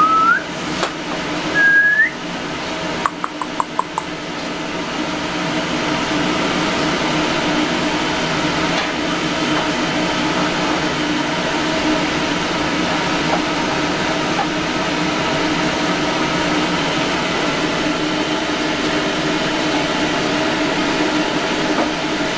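Steady mechanical hum of a fan or air-conditioning unit throughout. Near the start come two short whistles that rise in pitch at the end, and about three seconds in, four quick clicks.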